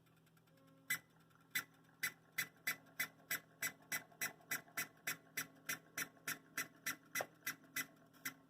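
Broadway Limited UP 4-12-2 Hybrid HO model steam locomotive making sharp, bird-like chirps in time with its speed, with its sound system switched off. The chirps begin about a second in and quicken to about three a second as it gathers speed. The owner cannot tell whether this is a faulty decoder or a mechanical problem.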